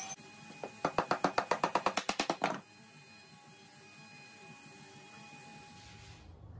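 Cordless drill working on a plywood bed frame: a rapid run of sharp clicks, about eight a second, lasting about two seconds.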